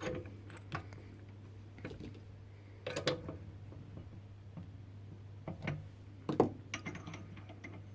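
Scattered clicks and knocks of a drill bit and tools being handled at a metal lathe, about five separate knocks, over a steady low hum.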